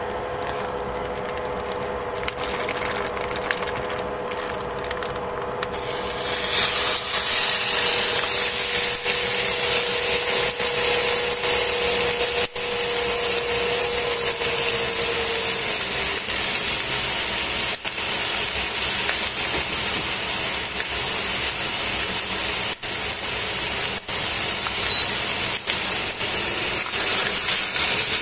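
Seasoned raw chicken thighs sizzling in a hot stainless steel pan: after a few seconds of steady hum, the meat goes in about six seconds in and a dense, steady sizzle starts and carries on.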